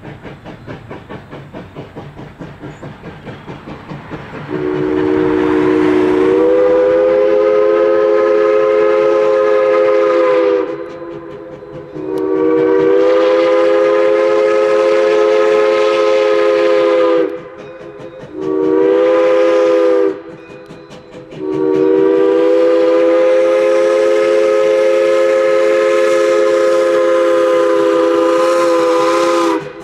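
Steam whistle of 1920 Baldwin 0-6-0 switcher No. 3 blowing the grade-crossing signal: two long blasts, one short and a final long one, each sounding a chord of several notes. Before the whistle starts, and faintly in the gaps between blasts, the locomotive's exhaust chuffs in a steady beat.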